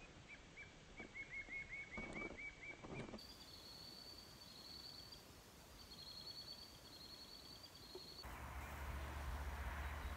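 Faint wild bird calls: a quick run of repeated high chirps, then a higher, thin trilling song. About eight seconds in, a louder steady outdoor rushing noise with a low rumble takes over.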